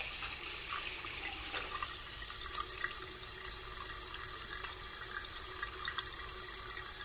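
Water running from a tap into a bathroom sink and splashing over hands being washed: a steady hiss with small scattered splashes.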